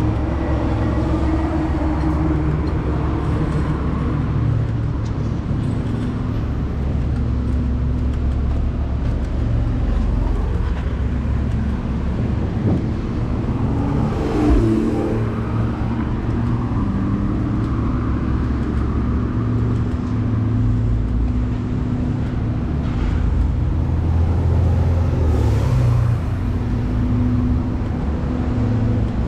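Steady road traffic: cars and buses running past on a multi-lane city road, a continuous engine and tyre rumble with one louder pass about halfway through.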